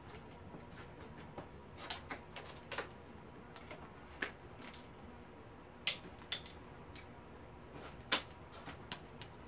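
Scattered light clicks, taps and knocks of hand tools and parts being handled while working on a dirt bike's front end, with two sharper knocks about six and eight seconds in.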